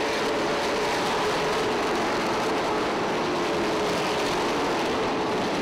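A pack of pavement late model race cars running laps together, their V8 engines blending into one steady drone with no single car standing out.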